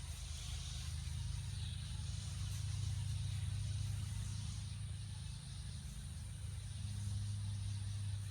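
A horse's chest heard through a stethoscope: a low, muffled sound that swells and fades twice, as in breath or heart sounds during auscultation.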